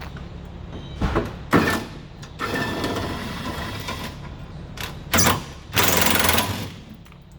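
A power tool running in several short bursts, a few of them held for about a second with a rapid rattle, in between shorter knocks.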